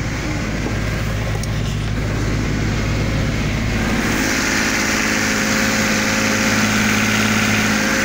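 Sailboat's inboard engine running steadily under way, warmed up to about 70 degrees. About halfway through it grows brighter and a little louder, heard closer up below deck.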